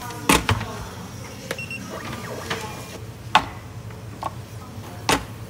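Paper ice-cream tubs being set down on and lifted off a countertop digital scale: a series of separate knocks and clunks, the loudest about three and a half and five seconds in, over a steady low hum.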